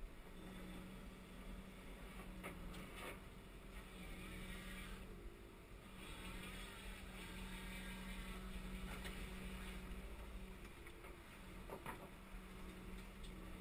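Wheeled excavator's engine and hydraulics heard from inside the cab while the grab handles a steel sheet pile: a steady low hum that breaks off for about a second around five seconds in and fades near the end, with a few light knocks.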